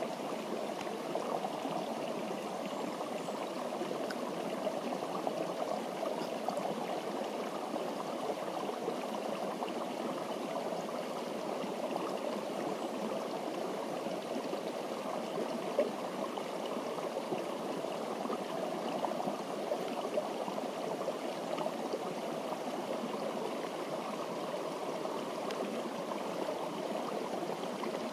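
Steady rush of running water, even and unbroken throughout.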